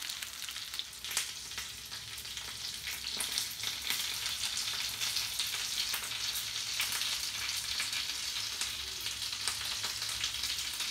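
Chicken fritters frying in shallow vegetable oil in a frying pan over very low heat: a steady sizzling hiss with many small pops.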